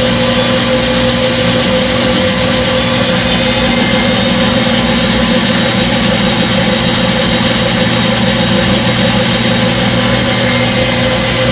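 Front-load washing machine spinning its drum: a steady motor and drum hum with several held tones, unchanging throughout, as in the controlled spin before the rinse.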